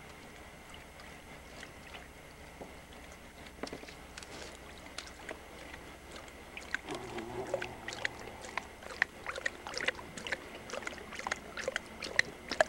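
A Saint Bernard lapping water from a plastic kiddie pool: quick, irregular wet splashy laps that start about halfway in and grow louder toward the end.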